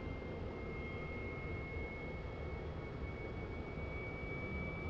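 Turbine engine of a large-scale radio-controlled T-45 model jet running, a steady high whine that slowly rises in pitch over a rushing noise.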